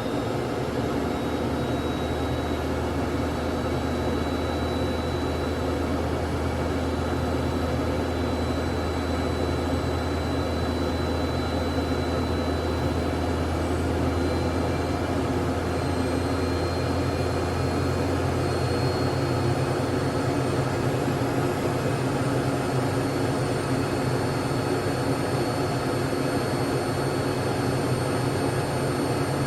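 Jet airliner engine noise: a steady drone with a low hum underneath and a faint high whine that slowly rises in pitch.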